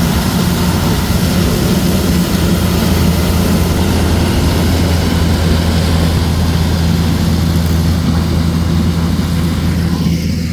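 Corn harvester running steadily under load: a deep, even engine hum beneath a loud rushing mechanical noise.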